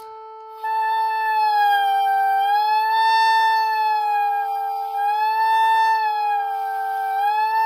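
Oboe holding a long A an octave above a steady drone tone on A, entering about a second in. Its pitch bends slowly flat and sharp of the drone several times as the reed is moved in and out of the mouth, the embouchure flexibility exercise for finding the in-tune spot.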